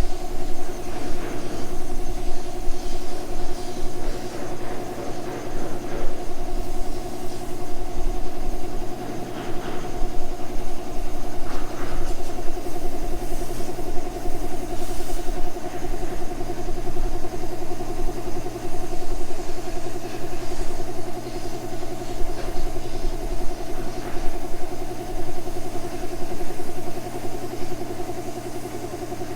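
Electric air compressor running with a steady hum, feeding a spray gun that is spraying primer.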